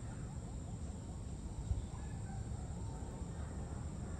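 Outdoor ambience: a steady low rumble with a few faint, distant bird calls, and a single soft thump a little under two seconds in.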